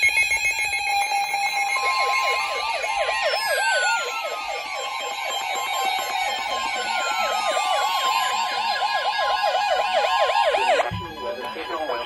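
Several weather alert radios going off together for a new warning: a steady alert tone under fast warbling siren-style alarms, about three to four warbles a second, with slower falling sweeps. It opens with the rasping tail of a SAME digital header and cuts off suddenly about 11 seconds in.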